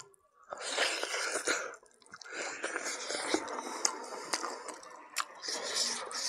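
Close-miked eating sounds: wet chewing and smacking of buffalo meat and rice eaten by hand, in three bursts with a few sharp clicks.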